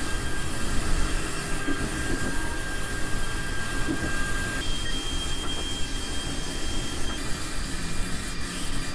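Drill press spinning a homemade sanding drum, its sandpaper sleeve sanding the curved edge of a wooden board: a steady whirring and sanding noise. A thin whine runs over it and steps up to a higher pitch about halfway through.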